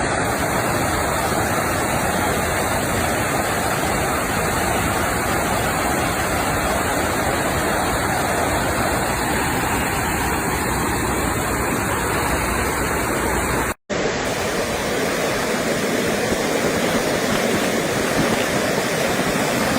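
Steady rush of fast-flowing floodwater. It cuts out abruptly for a moment about 14 seconds in, then resumes with a slightly deeper tone.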